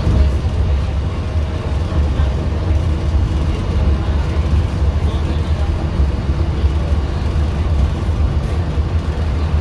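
Walt Disney World monorail running at speed, heard from inside the car: a steady low rumble.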